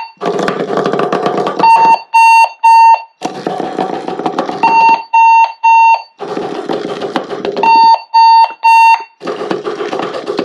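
Sonic Bomb alarm clock going off in buzz-and-vibrate mode, very loud: sets of three short high beeps alternate with harsher buzzing bursts about one and a half seconds long, over and over.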